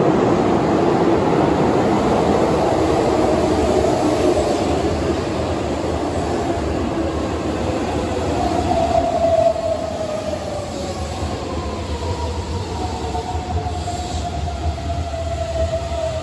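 Keihan 7200 series electric train entering an underground station and braking. A loud running rumble comes first, then from about halfway through the Toyo Denki GTO VVVF inverter whines, its tones falling slowly as the train slows.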